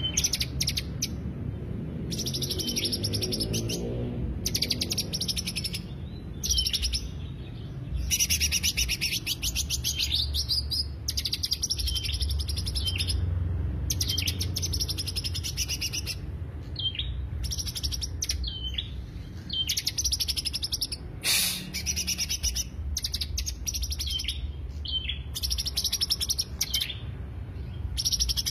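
Green leafbird (cucak hijau) singing: rapid, chattering high phrases of a second or two each, repeated with short pauses, over a steady low hum.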